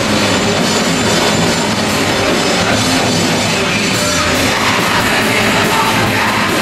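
Live heavy metal band playing loud: distorted electric guitars, bass guitar and a drum kit together in a dense, continuous wall of sound.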